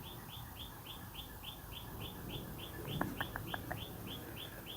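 A steady, even run of short high chirps, about five or six a second, with a few quick light clicks about three seconds in.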